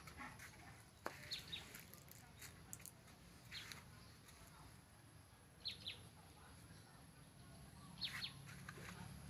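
Faint, short, high chirps of small birds, coming every couple of seconds and often in pairs, over quiet outdoor background.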